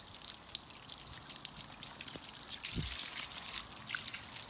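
Water from a hose with a spray nozzle being played over a horse's lower legs, a steady hiss of spray with water spattering onto the wet ground. There is a short soft thud near the middle.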